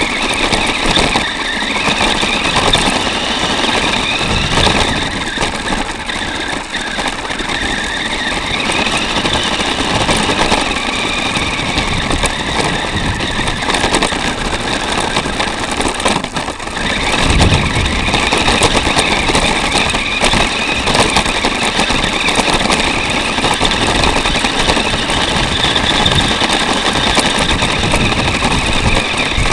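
Small 4x4 RC car (Revell Lion chassis) driving over rough ground, heard from on board: its electric motor and gears whine, rising and falling in pitch with speed, over constant rattling and knocking of the chassis and plastic body shell.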